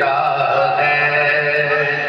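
A man's voice chanting a devotional recitation, holding long drawn-out notes.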